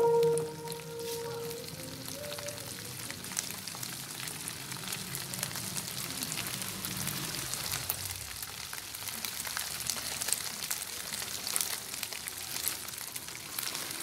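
Flaked canned sardines frying in a nonstick pan: a steady sizzle with scattered pops and crackles. Background music fades out in the first second or two.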